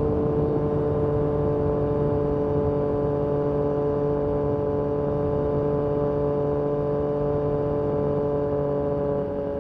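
Yamaha MT-09 SP inline three-cylinder engine through an Akrapovic carbon racing exhaust, running at a steady cruise with its pitch easing slowly down. The sound dips briefly near the end.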